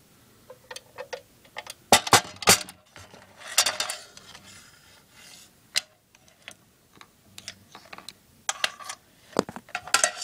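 Test leads and their probes being handled and laid into the multimeter's metal carrying case: scattered clicks and knocks against metal, with rustling of the leads between. The loudest knocks come about two seconds in and again a little after nine seconds.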